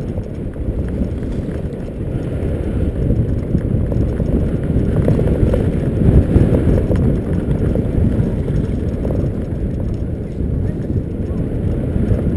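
Wind buffeting the microphone over the rumble and rattle of a mountainboard rolling fast down a grass slope.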